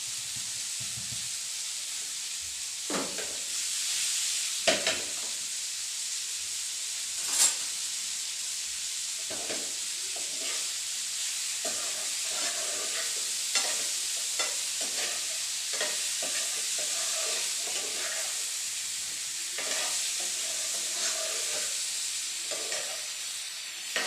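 Boiled amla with spices sizzling in a little hot oil in a pan while being stirred, with a steady frying hiss and repeated scrapes and knocks against the pan.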